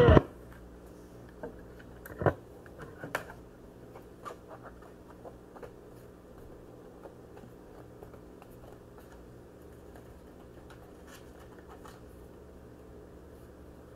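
Music cuts off abruptly; then a faint steady hum and hiss with scattered small clicks and crackles, the sharpest a little over two seconds in.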